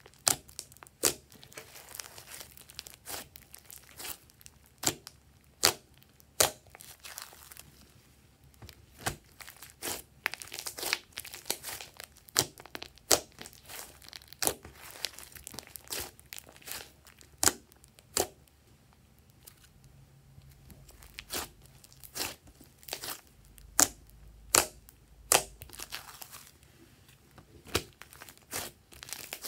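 Hands kneading and squeezing a thick slime mixed with clay, giving irregular sharp wet pops and clicks, a few a second, with crackly stretches between them as the slime is pressed and pulled.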